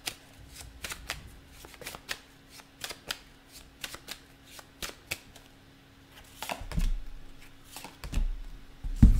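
A deck of tarot cards being shuffled by hand: quick, crisp card flicks a few times a second, stopping about five and a half seconds in. After a short pause come a few louder thuds near the end.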